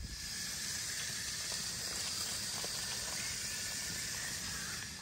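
Camp stove cooking in a tent: a steady, even hiss with a few faint ticks.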